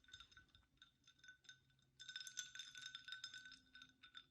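A spoon stirring a drink in a glass, clinking rapidly against the inside so the glass rings. The clinks are faint and scattered at first, then come thick and fast for about a second and a half in the middle.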